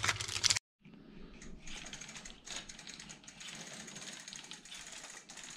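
Plastic wrap crinkling as a bicycle pedal is unwrapped, cut off suddenly. Then faint rapid mechanical clicking and handling noise as the pedal is fitted to the crank arm.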